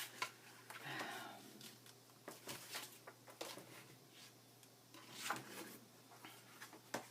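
New foam ink-blending sponge rubbed on paper edges in a series of short, faint strokes, squeaking on some of them: the new sponge makes it squeaky.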